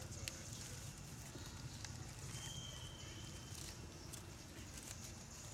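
Quiet outdoor ambience: a steady low rumble with a few faint clicks, and a thin, steady high tone lasting about a second near the middle.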